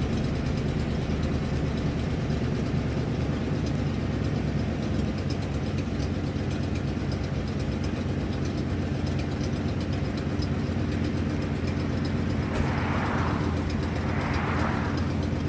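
Ford 7.5 L (460) V8 idling steadily with a fast ticking from an exhaust leak. Two short hissing swells come near the end.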